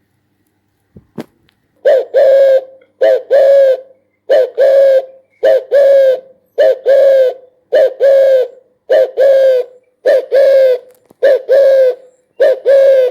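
Spotted dove cooing: a steady series of paired coos, a short note followed by a longer one, about one pair a second, starting about two seconds in.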